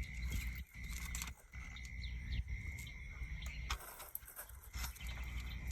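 Quiet outdoor ambience: faint bird chirps over a steady high drone, with a low wind rumble and a few light knocks.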